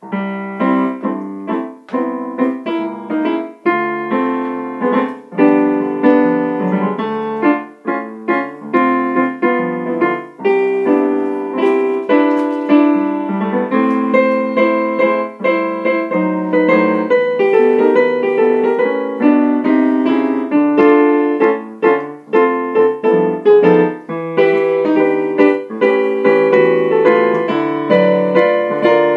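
A song's tune played on a piano-voiced keyboard: a melody over chords, notes struck in a continuous flow.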